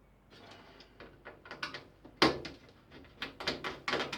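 Clicks, knocks and clatter of a desktop PC's case and parts being handled as a component is pulled out, with one sharp knock about two seconds in and a quick run of clicks near the end.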